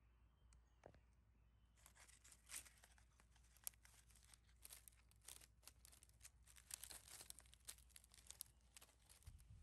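Faint, irregular crackling and rustling of dry, dead palm fronds and leaf litter, starting about two seconds in, as a cat walks through and over them.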